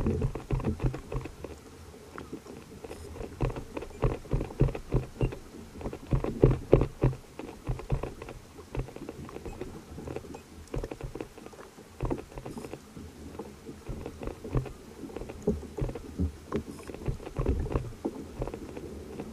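Water sloshing and knocking against a fishing kayak's hull: a run of irregular low thumps and knocks, busiest around the middle.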